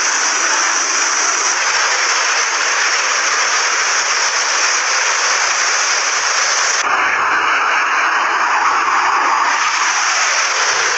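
Fighter jet engine noise: a loud, steady rushing roar with no clear pitch, whose character changes abruptly about seven seconds in.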